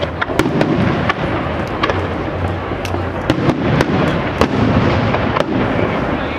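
Professional aerial fireworks display: shells launching and bursting in quick succession, a dense run of booms with many sharp cracks and pops overlapping throughout.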